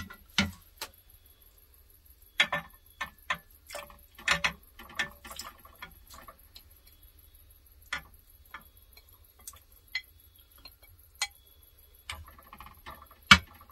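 Irregular clicks and knocks as pieces of raw beef are tipped and scraped from a plate into a saucepan, then a wooden spoon taps and stirs in the pan. The louder knocks come just after the start and near the end.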